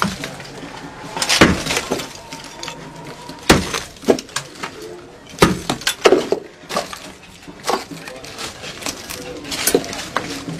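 Shrine objects and rubble being broken and tossed about: a string of irregular crashes and clinks, some a second or two apart.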